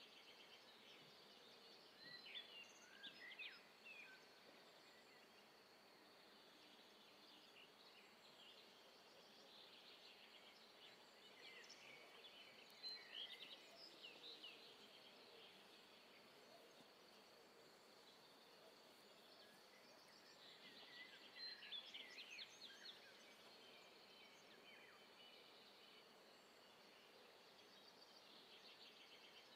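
Faint bird chirping in three short spells over a low, steady background noise.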